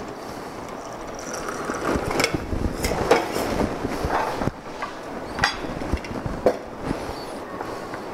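A stirred cocktail poured from a metal mixing glass into a glass tumbler over ice, followed by clatter of tools and glassware on a steel bar top. Then a wooden-handled tool knocks sharply on a block of ice, twice in the second half.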